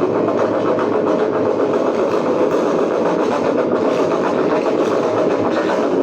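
A vehicle running steadily, a loud, even mechanical rumble with a fast, fine flutter.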